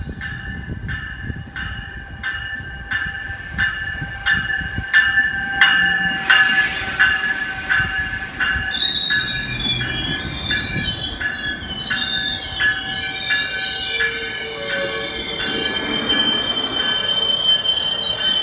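GO Transit bilevel commuter train pulling into a station. Its bell rings steadily, about one strike every half second, for the first eight seconds or so, with a short burst of hiss about six seconds in. Then, as the double-deck coaches roll past slowing, the wheels and brakes give a high, wavering squeal.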